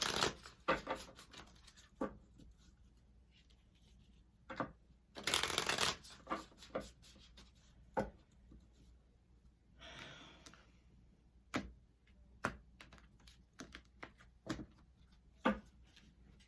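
A deck of Affirmators affirmation cards being shuffled by hand. There are two longer bursts of shuffling, one at the start and one about five seconds in, with scattered card snaps and taps in between.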